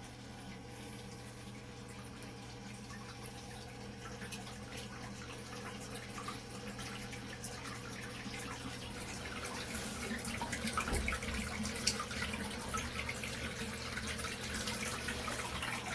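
Liquid pouring and splashing, getting steadily louder as it goes, over a faint steady hum.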